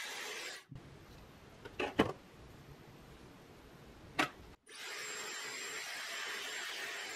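Hair dryer blowing steadily with a faint high whistle, cut off abruptly under a second in. A quieter stretch follows with two sharp clicks, and the hair dryer blows again from about two-thirds of the way through.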